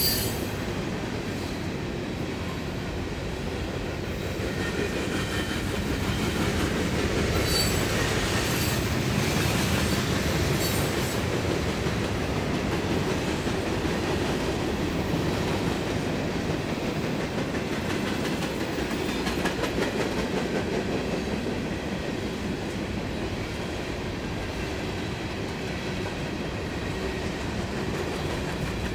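Freight train cars rolling past: a steady rumble of steel wheels on rail with rhythmic clicking over the rail joints. Brief high wheel squeals come through about eight and eleven seconds in.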